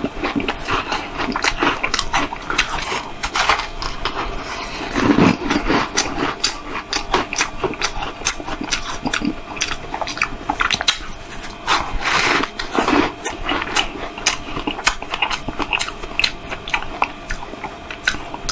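Close-up crunching and chewing of a block of compacted crushed ice topped with strawberries: a dense run of sharp crackles as the ice breaks between the teeth, with louder bites about five seconds in and about twelve seconds in.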